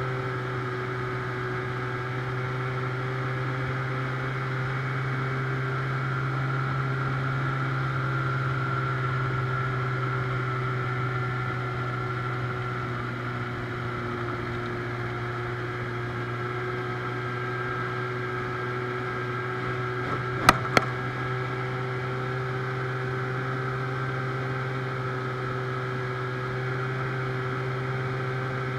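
Outboard motor of an aluminium jon boat running at a steady speed, a constant low drone with a steady hum above it. About two-thirds of the way through come two sharp knocks close together.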